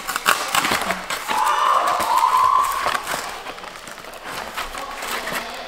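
Crinkling and rustling of takeout food wrapping as it is handled and opened, an irregular crackle, with a brief higher wavering tone partway through.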